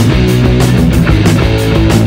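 Loud rock background music with guitar and a steady beat.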